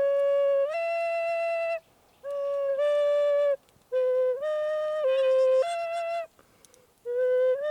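A flute playing a slow melody of held notes that step up and down in pitch, in four short phrases with brief pauses between them; the last phrase is still sounding at the end.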